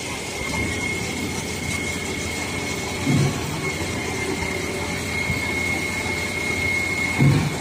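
Sany 47-metre truck-mounted concrete pump running steadily with a thin high whine, and a dull low thump twice, about four seconds apart, as the pump switches stroke while pumping concrete.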